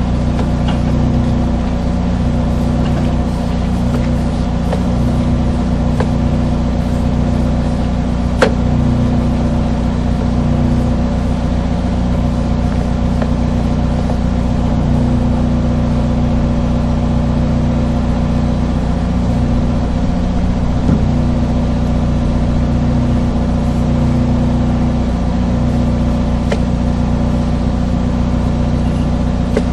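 Sewer jetter's engine running steadily with a low drone while it pumps water down the line. There is one sharp click about eight seconds in.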